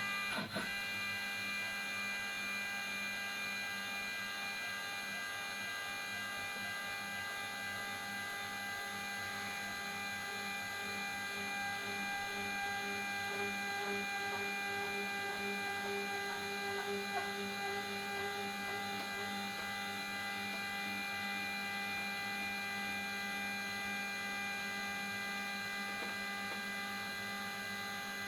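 Homemade CNC router running: its motors give a steady whine of several fixed tones at an even level, with one lower tone wavering for a few seconds midway as the machine moves.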